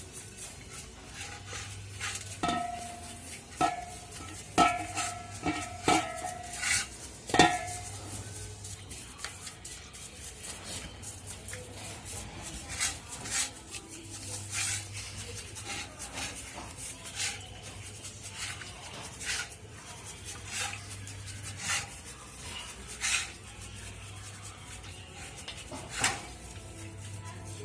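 Metal tools and compressor parts clinking and tapping against each other, with several ringing metallic clinks in the first eight seconds, then lighter clicks and taps.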